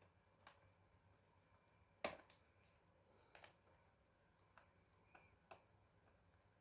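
Faint, scattered clicks and taps of small laptop parts being handled, about eight in all, with one sharper click about two seconds in.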